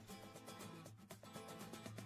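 Faint instrumental background music.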